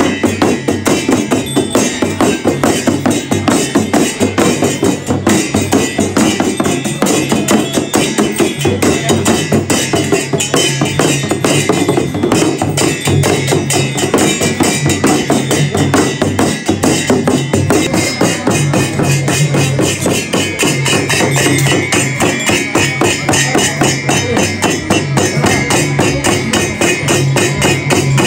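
Shaman's frame drum (dhyangro) beaten in a fast, steady, unbroken rhythm for a jhakri ritual dance.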